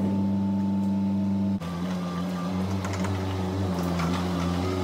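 Swinger Bee 1600 loader's engine running steadily as the machine drives in. Its note shifts abruptly about a second and a half in.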